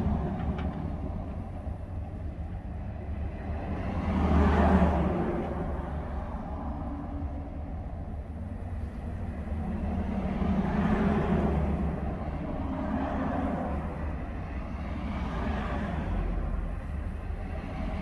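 Cars and trucks driving past one after another on a snow-covered road, the sound of engine and tyres on snow swelling and fading with each pass. The loudest pass is about four to five seconds in, another around eleven seconds, over a steady low rumble.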